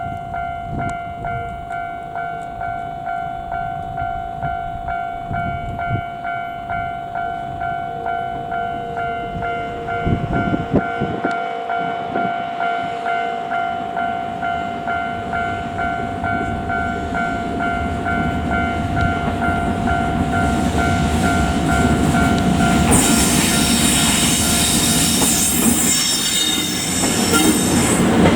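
Japanese level-crossing warning bell ringing at an even beat, a little over one strike a second. About five seconds before the end, the noise of the approaching EF64 electric locomotive and its train of 209-series cars rises sharply over the bell.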